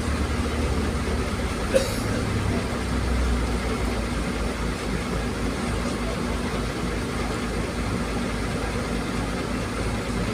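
Roll-on/roll-off ferry's engines running with a steady low drone while under way. There is a single sharp click about two seconds in.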